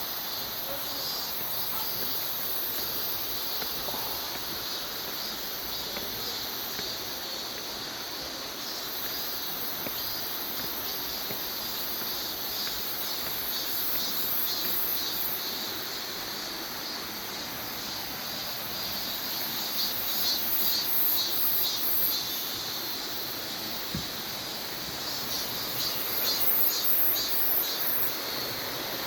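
Steady rush of a mountain valley stream, with insects calling in fast, high-pitched pulses for a couple of seconds about two-thirds of the way in and again near the end.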